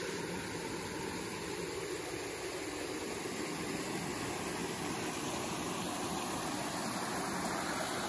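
Steady rush of a waterfall pouring into a rock pool, an even noise without breaks.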